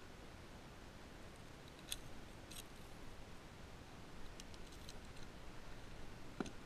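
Sharp metallic clicks of fishing pliers and treble hooks as a small jerkbait is worked out of a pickerel's mouth: two clicks about two seconds in and a run of fainter ones a little later. A louder knock comes near the end, over a low steady hiss.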